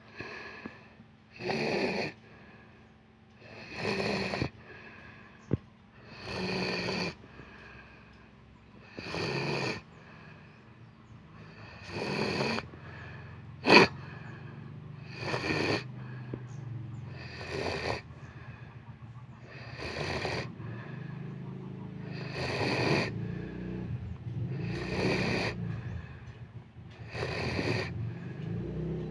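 A sleeper snoring, one noisy breath about every two and a half seconds. A single sharp click sounds about fourteen seconds in, and a low hum builds underneath in the second half.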